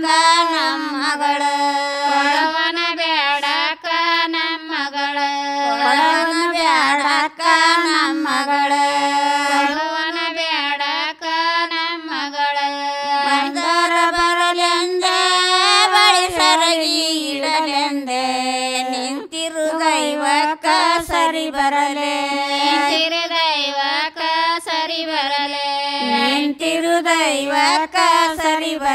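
Two women singing a Kannada shobhana pada, a traditional folk song, together in a steady, repeating melody.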